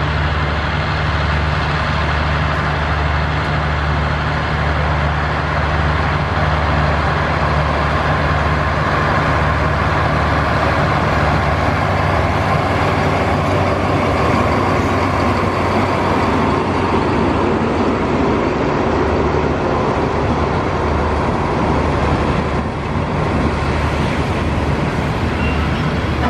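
Alsthom diesel-electric locomotive running as it approaches and passes close by, its engine a steady low drone, followed by the wheels of the passenger coaches rumbling on the rails as they roll past.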